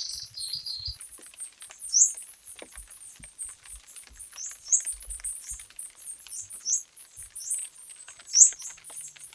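Birds chirping: short, sharp, rising chirps every two seconds or so over a dense, high twittering, with scattered light taps of rain patter.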